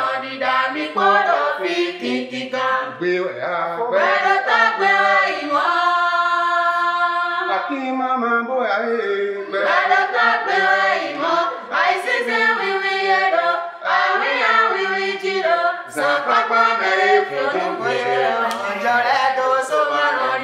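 A mixed group of men and women singing a Guédé chant together, with one long held note about six seconds in.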